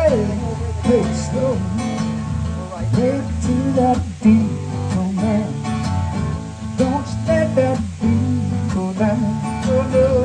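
Acoustic guitar played solo in an instrumental passage, with a picked melody over strummed chords.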